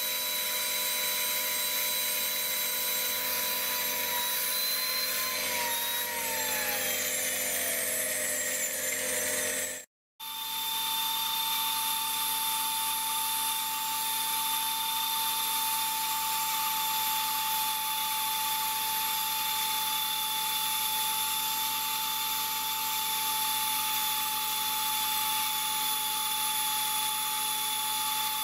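Air-powered die grinder with a tiny grinding wheel, running with a steady high whine and air hiss as it grinds the jaws of a worn, bell-mouthed three-jaw chuck to true them. Its pitch slides down over a few seconds, the sound drops out briefly about ten seconds in, and then it carries on at a steady whine.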